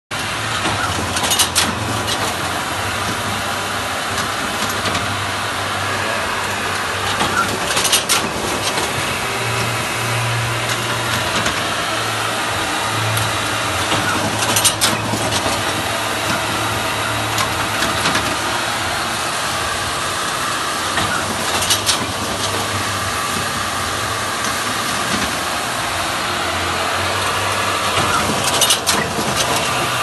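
Moba M 16 poultry bird bagger running: a steady machine hum and whirr, with a short, sharp burst about every seven seconds, five times.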